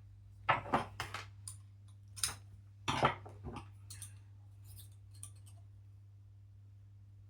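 Sharp clicks and clatter of small hand tools and hard parts being handled while taking apart an RC truck's servo mount, in quick clusters during the first three seconds or so, then lighter taps.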